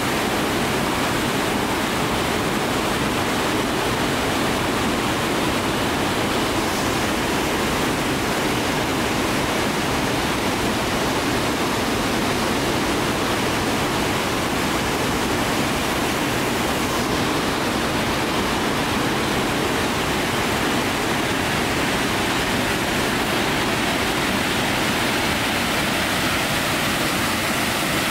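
The Great Falls of Tinkers Creek waterfall, a steady, unchanging rush of falling water.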